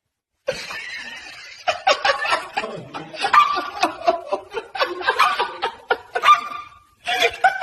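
Laughter: a run of short, choppy laughing bursts starting about half a second in, dipping briefly near the end.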